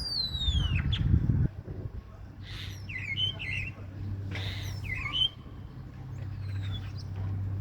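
Common starling singing: a long falling whistle at the start, then a run of short chirps and clicks in the middle, and a fainter falling whistle near the end. A low rumble sits under the first second and a half.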